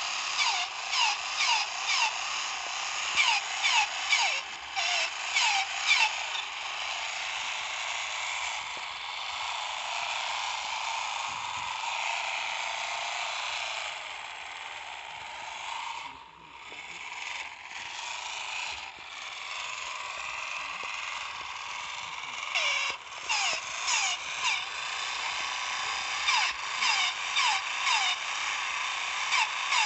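Bootleg Spotbot toy robot running: its small battery motor and plastic gears whirr steadily, with short falling squeaky chirps about twice a second for the first few seconds and again in the last third. The motor had been stuck and freed, and the toy runs a little slow.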